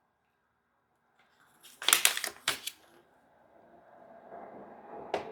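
A paper user-manual booklet being handled: a short burst of crisp crinkling clicks about two seconds in, then faint rustling near the end.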